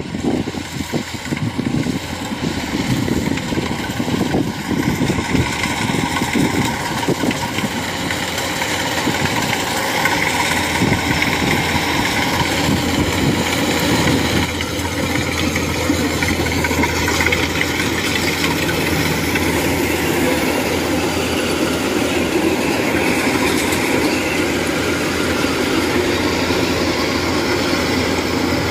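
Kubota DC-105X combine harvester's diesel engine and threshing gear running steadily under load as it cuts rice. The sound grows louder over the first ten seconds or so as the machine draws near, then holds steady.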